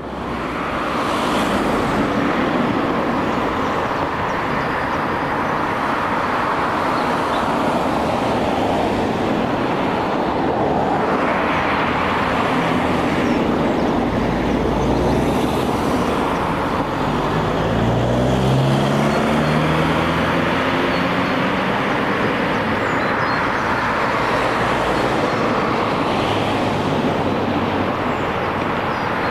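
Steady rumble of motor traffic, with one engine's note climbing in pitch about two-thirds of the way through.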